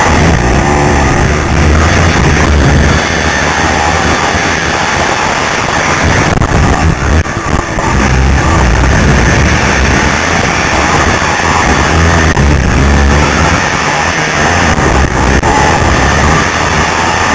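Racing quad's engine running hard through a race, loud and distorted on a helmet-mounted camera with wind noise over the microphone. Rock music is also heard.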